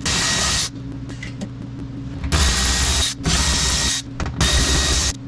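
Milwaukee 12-volt 3/8-inch cordless electric ratchet spinning Torx bolts out in four short runs, each under a second, with brief pauses between.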